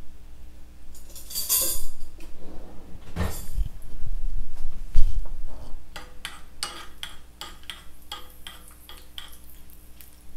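Mustard seeds and urad dal frying in oil in a small tempering pan, stirred with a metal spoon. A few louder scrapes and bumps come in the first half. From about halfway there is a run of sharp clicks and clinks, about three a second, as the spoon works the pan and the mustard seeds begin to pop.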